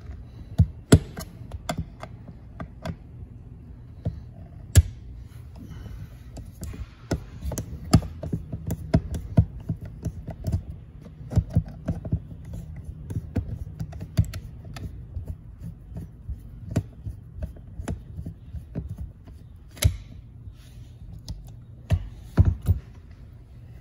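Steel flat-blade screwdriver clicking and scraping in the stripped centre screw of a Honda GX120 recoil starter as the screw is worked loose, with irregular sharp metallic clicks and taps.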